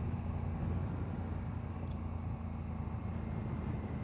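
Aprilia RS 457's parallel-twin engine and exhaust running steadily at constant revs, with a low, even note.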